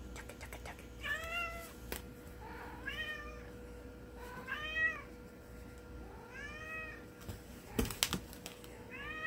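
Domestic cat meowing five times, about a second and a half apart, each meow rising and then falling in pitch. A few sharp knocks sound about eight seconds in.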